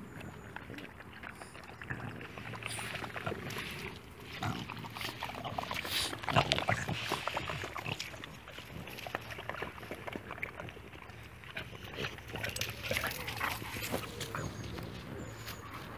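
A pack of dogs playing and scuffling together, with dog vocal noises and irregular bumps and scrapes. It is busiest and loudest around six to seven seconds in, and busy again a little past the middle.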